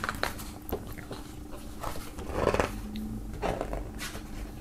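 Thick pages of a hardcover photo book being turned by hand: paper rustling and light slaps, loudest a little past halfway.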